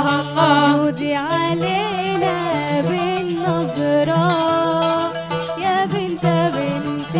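Young female voices singing an Arabic devotional nasheed, with a wavering, ornamented melody line over instrumental accompaniment.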